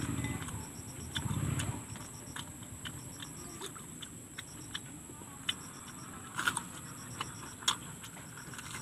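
Close-mic eating sounds of crispy fried chili peppers: scattered sharp crunches and wet mouth clicks, loudest in the second half. A steady high insect chirp runs behind, with a low rumble in the first second or so.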